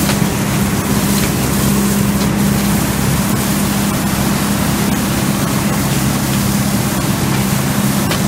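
Truck-mounted leaf vacuum running steadily: rushing air at the hose nozzle as it sucks up curbside leaves, over a steady engine hum.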